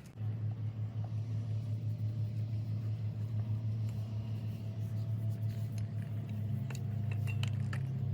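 An engine running steadily with a low, pulsing hum; its pitch steps up about six and a half seconds in.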